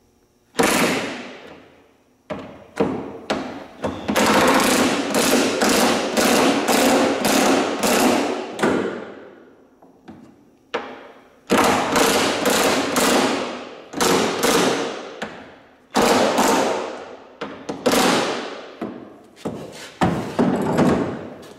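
Cordless DeWalt impact driver running bolts down in bursts of rapid hammering. It starts with a few short blips, then gives longer runs of several seconds each, broken by brief pauses and short taps as each bolt is snugged tight.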